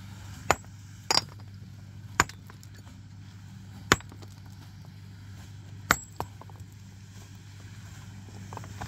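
Hammer blows on stone: about six sharp, clinking knocks at irregular intervals, one of them a quick double hit, as rocks are broken and trimmed. A steady low hum runs underneath.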